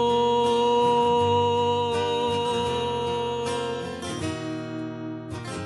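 A man's voice holds a long sung note over strummed acoustic guitar; the note ends about three and a half seconds in and the guitar chords carry on alone.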